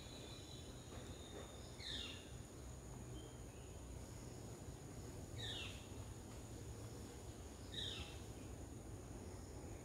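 Faint garden ambience: a steady high insect drone, with a bird calling three times in short downward-sweeping notes.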